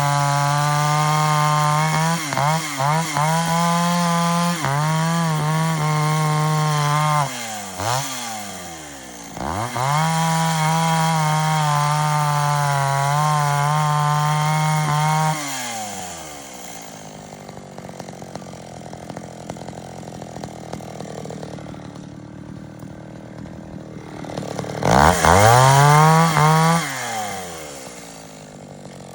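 Echo 550 two-stroke chainsaw held at high revs with short dips, falling to idle about seven seconds in and revving back up, then dropping to a steady idle for most of the second half before a quick rev near the end.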